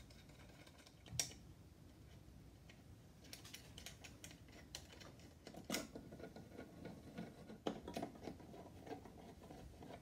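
Faint, scattered clicks and taps of a smart wall switch and its wires being pushed into a metal electrical box and screwed in place with a screwdriver. A sharper click comes about a second in, then a run of small ticks and knocks.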